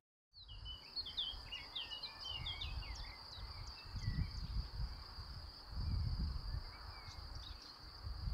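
Countryside ambience: an insect trills steadily on one high note, while birds give a flurry of short chirps over the first few seconds. Low rumbles swell twice, about four and six seconds in.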